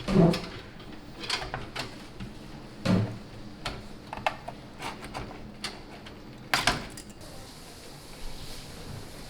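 Clicks and knocks of a graphics card being handled and fitted into a PC case, with louder thumps near the start and about three seconds in and a sharp clack about six and a half seconds in.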